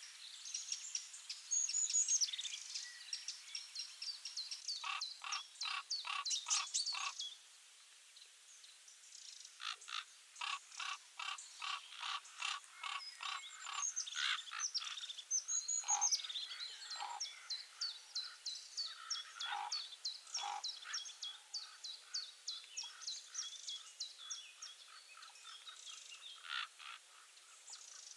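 Birds singing: a busy mix of chirps and short rising-and-falling whistled notes, with runs of quick repeated notes at about four a second.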